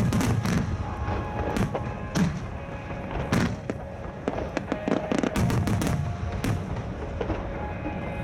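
Starmine fireworks barrage: aerial shells bursting in quick, irregular succession, sharp bangs and crackles over a low rumble. Music plays underneath.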